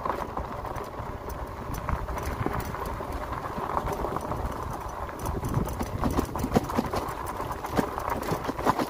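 The 4-inch-wide fat tyres of an electric fat-tire bike rolling over a loose, stony gravel trail: a continuous crunching rumble with frequent irregular clicks and knocks from the stones.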